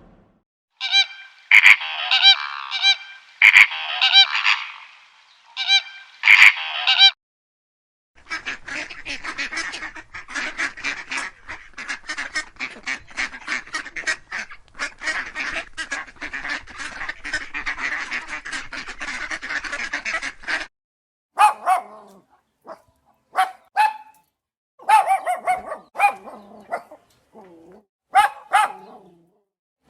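Bird calls: clusters of loud repeated calls for the first several seconds, then a long stretch of rapid chattering, then scattered single calls near the end.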